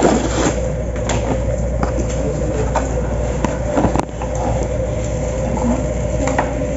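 Steady hum of a shop interior with a constant tone, broken by scattered clicks and knocks of a cardboard box and foam packaging being handled on the counter, the sharpest about four seconds in.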